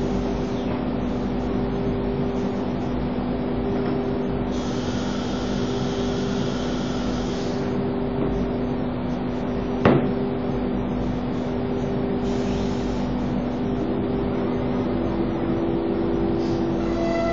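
An automatic-tool-change CNC router cutting a sheet: its spindle and dust extraction run steadily with a constant hum. A hiss rises for about three seconds, about five seconds in, and a single sharp knock comes just after the middle.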